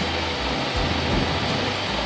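Milk tanker truck's engine and milk pump running steadily, drawing milk from the dairy vat through the hose, with background music over it.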